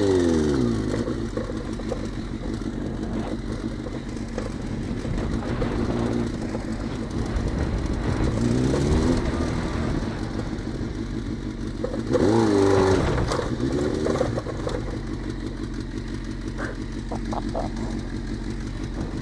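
Suzuki GSX-R 600 sport bike's inline-four engine running at a steady idle, with the throttle blipped several times so the revs rise and fall. The biggest rev comes about two-thirds of the way through.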